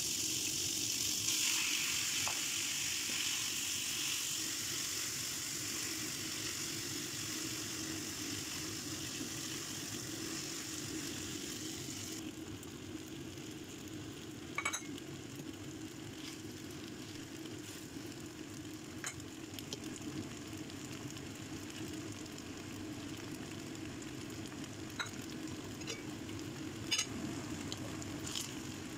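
Fresh udon noodles sizzling in hot oil in a frying pan, loud at first, then quieter after about twelve seconds. A few sharp clicks of tongs against the pan come later, over a steady low hum.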